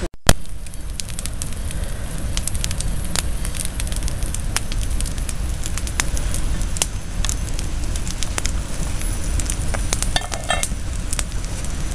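Wood campfire burning, with frequent sharp pops and crackles over a steady low rumble.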